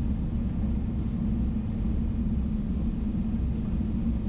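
Steady cabin rumble inside a Boeing 777-300ER taxiing after landing, its two GE90 engines running at idle, with a steady low hum.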